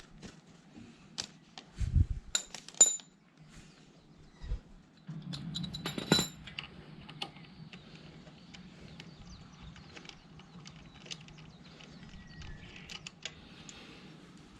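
Light metallic clinks and knocks of small metal objects being handled, with a low thump about two seconds in, a couple of ringing clinks just after it, and a louder clink about six seconds in.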